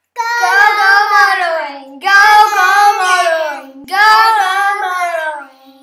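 A child's voice singing three short unaccompanied phrases, each sliding down in pitch, as the channel's intro jingle.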